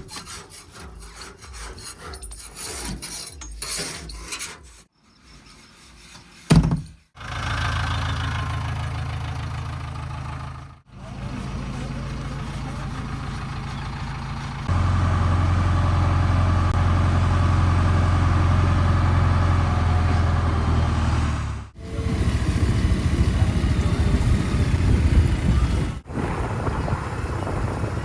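Diesel engines of earthmoving machinery running steadily, heard in several spliced clips. It opens with a rapid scraping, rasping clatter, and the low engine note steps up louder about halfway through.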